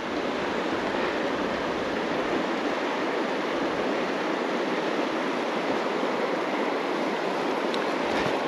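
Creek water rushing steadily over rocks, an even rush with no breaks.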